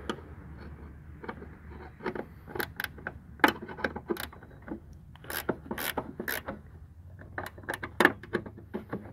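Ratcheting wrench clicking in short, uneven runs of sharp ticks as it turns the bolts of a sliding-door roller bracket.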